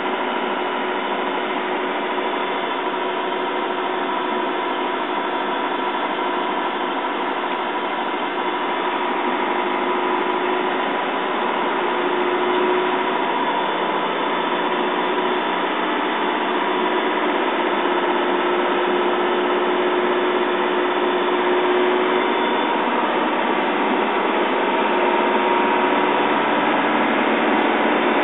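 Mercedes-Benz LP 808 truck's diesel engine running steadily under way, heard from inside the cab along with road noise and a steady hum. It gets a little louder near the end.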